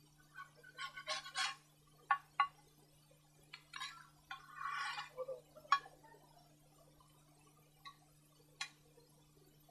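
Scattered light knocks and clicks, with a short scrape about four and a half seconds in, as coals and a frying pan are worked over an open wood fire.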